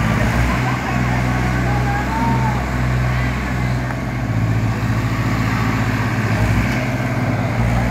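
New Holland and Swaraj tractors' diesel engines running hard together, pulling against each other in a tractor tug-of-war: a loud, steady low engine drone.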